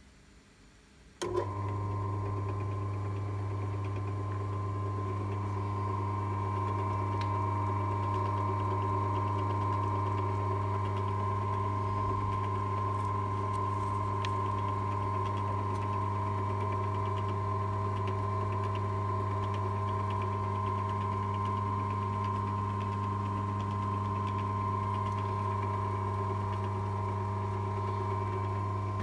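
Clarke Metalworker bench drill press switched on with a click about a second in, its electric motor then running steadily with a strong low hum and a higher whine.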